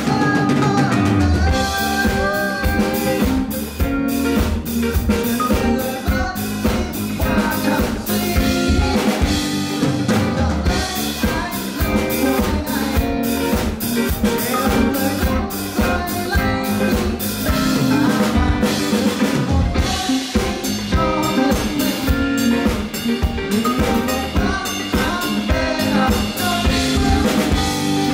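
Live band music played through a PA: a drum kit keeps a steady beat under a male singer's vocals.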